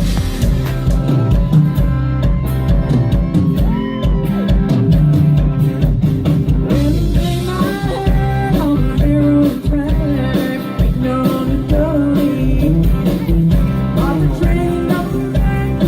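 A rock-and-roll style song with a singing voice and guitar over a steady beat.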